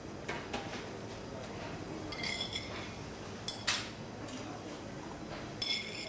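Metal kitchen utensils clinking against stainless-steel bowls and pans: a couple of light clicks, then ringing clinks about two seconds in, a sharper strike in the middle and another ringing clink near the end, over a steady background hum.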